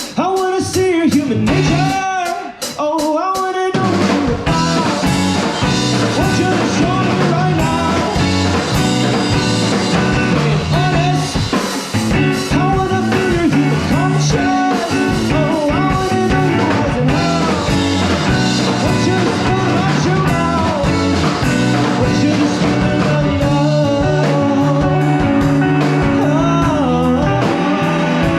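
Rock band playing live, with electric guitar, bass and drum kit. The opening few seconds are a sparse break of separate hits and bending notes, and the full band comes back in about four seconds in and plays on steadily.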